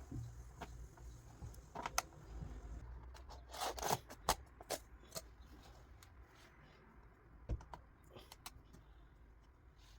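Hands working on an Acer Aspire E15 laptop: scattered small clicks and short scrapes of plastic and metal parts being handled, busiest about three and a half to four and a half seconds in.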